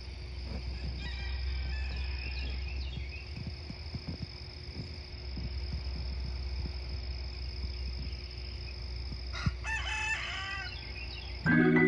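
A rooster crowing, faintly about a second in and more strongly near the end, over a steady low rumble and a thin steady high tone.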